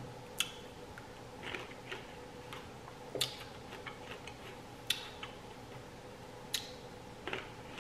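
Close-up eating sounds: soft wet clicks and smacks of a mouth chewing fruit, coming every second or so over a faint steady hum.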